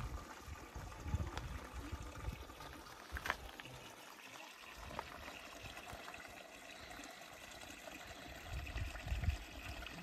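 Faint, steady trickle of a thin stream of water running over rock into a shallow stony pool, with a sharp click about three seconds in.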